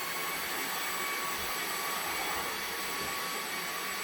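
Moosoo cordless stick vacuum with powered brush head running steadily on full (boost) power: a steady high motor whine over a rush of air.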